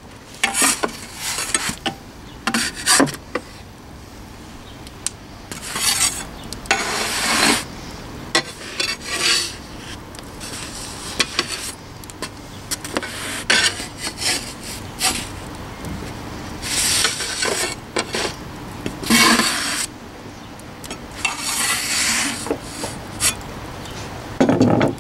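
Metal bread peel scraping and rasping across the floor of a wood-fired oven as baking loaves are shifted around, in repeated, irregular strokes each lasting up to about a second, with short sharp clicks between them.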